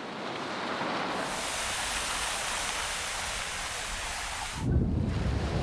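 Large plastic tarpaulin rustling steadily as it is dragged and spread over sand. Near the end the rustle stops and a low rumble of wind on the microphone takes over.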